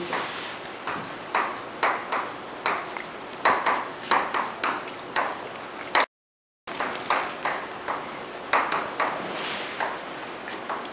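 Chalk writing on a blackboard: a run of sharp, uneven taps, about two a second, as the strokes of an equation are put down, with a brief total dropout just past the middle.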